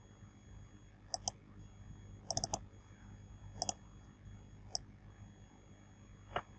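Sharp computer mouse clicks at scattered moments, several in quick pairs and a quick run of four, over a faint steady low hum.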